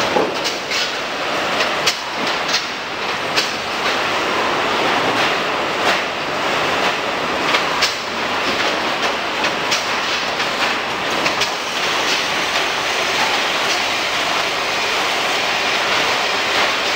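Carton packing line running: steady machine noise from conveyors and a carton sealer, with irregular clattering knocks as cardboard boxes travel over the rollers; the knocks thin out near the end.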